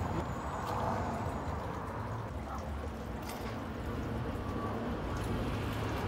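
Steady outdoor background noise: a low rumble with a faint hiss over it.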